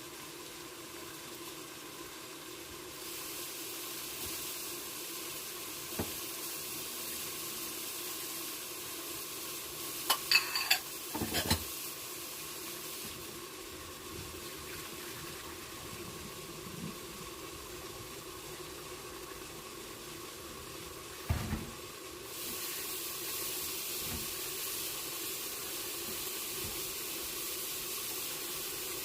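Covered pan of squash and pork stir-fry sizzling steadily as it cooks, the sizzle growing louder about three seconds in and again near the end. A quick run of clinks from pan or utensils comes about ten seconds in, and a single knock comes a little past the middle.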